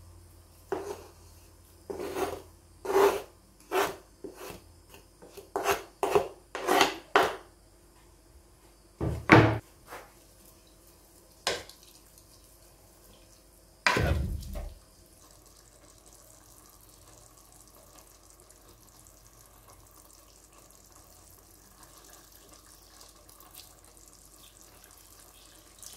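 Wooden spoon stirring chopped spinach, dill and rice in a pot of liquid, a run of short wet scraping strokes, then a few louder single knocks against the pot. Afterwards only a faint steady hiss, the pot simmering.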